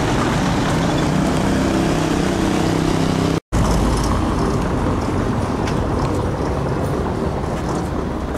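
Car engine running with road noise, heard from inside a moving car, a steady drone. The sound cuts out briefly about three and a half seconds in and gives way to outdoor street noise with a low rumble and a few faint clicks.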